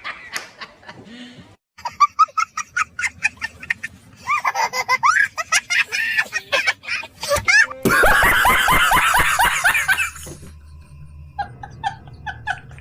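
Several different recorded laughs, one after another: quick, pulsed ha-ha laughter, then a higher, gliding laugh, then a loud, dense burst of laughter about eight seconds in, and short, even laughing pulses near the end.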